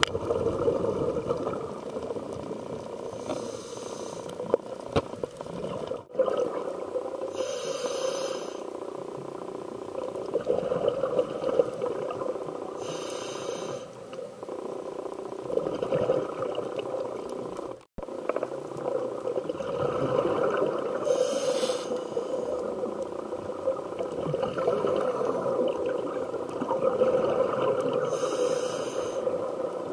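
Scuba diver breathing through a regulator, heard muffled inside an underwater camera housing: a short hissing inhale every several seconds, with a bubbling, rumbling exhale between them.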